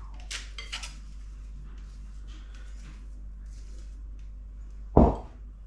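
Spoon scraping and clinking against a glass mixing bowl as thick fibre-bread dough is scooped out, with a single loud knock about five seconds in.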